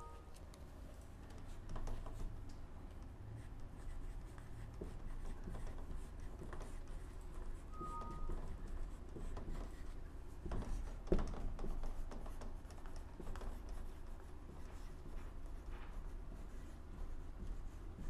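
A dry-erase marker writing on a whiteboard: faint scratching strokes of the felt tip, with a couple of brief squeaks and a single knock about eleven seconds in.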